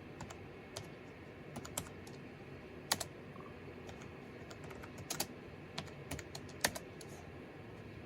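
Keys tapped on a computer keyboard in a few short, uneven runs, mostly light clicks with a few sharper keystrokes.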